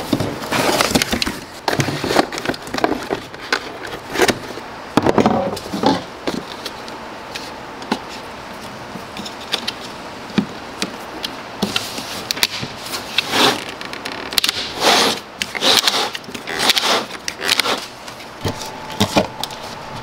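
Plastic lid of a pail of Lizard Skin coating being worked off with pliers and a flat pry bar: a run of sharp plastic cracks, snaps and clicks as the lid's rim is levered up, thickest in the second half. Cardboard box handling near the start.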